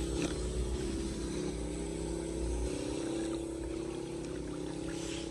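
Floodwater rushing and swirling down a storm drain as leaves are pulled clear of it, with a steady low hum under the rush of water.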